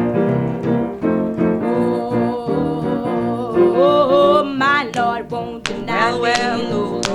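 Opening of a gospel song: piano chords, with a singing voice coming in about halfway through with wordless, sliding notes.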